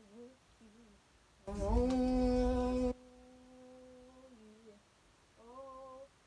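A girl humming long held notes in a small room. The first note comes about a second and a half in and is the loudest; it carries on more softly and slides down, and a shorter note follows near the end.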